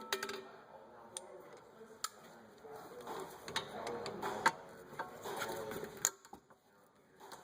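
Hand tools working on a rear brake caliper: irregular sharp metal clicks and ticks over a light clatter of metal on metal, dying away near the end.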